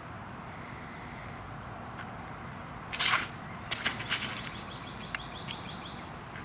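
A sudden sharp crash about three seconds in, followed by a few lighter clicks. Over the steady outdoor background, a rapid run of short high chirps comes in just after it.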